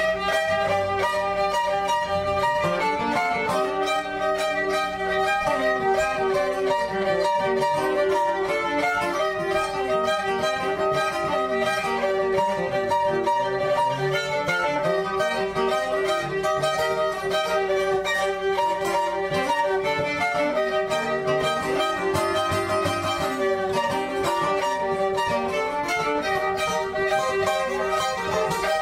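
Background music: a recorded song playing at a steady level.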